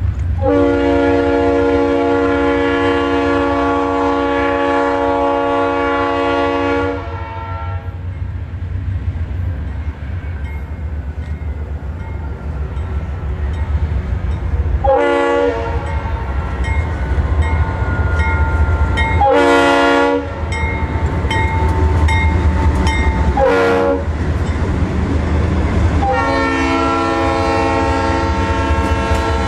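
Diesel freight locomotive's multi-chime air horn blowing one long blast of about six seconds, three short blasts a few seconds apart, then another long blast starting near the end, over the steady low rumble of the passing train.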